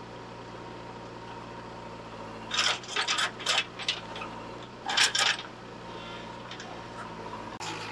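Mud and clumps of crop stubble dumped from a JCB 3DX backhoe bucket into a metal tractor trolley: two spells of clattering, scraping impacts, the first about two and a half seconds in and the second about five seconds in. A steady diesel-engine hum runs under them.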